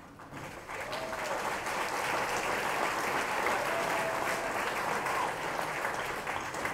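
A roomful of people applauding, a steady clapping that starts within the first second and dies away near the end.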